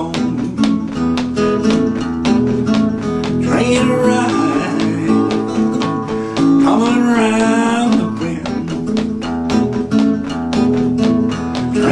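Steel-string acoustic guitar played in a driving rockabilly-blues rhythm, with steady, evenly paced picked and strummed strokes.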